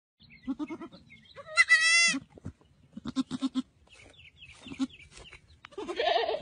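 Young goat kid bleating: one loud, quavering bleat about a second and a half in, among shorter, softer sounds.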